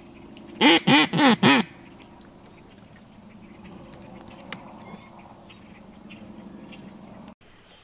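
Four loud duck quacks in quick succession about a second in, each rising and falling in pitch, then a faint low hum that cuts off suddenly near the end.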